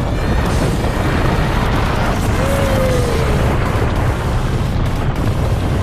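Wind buffeting the microphone of a camera on a moving bicycle, a steady low rumble, with a brief falling tone about two and a half seconds in.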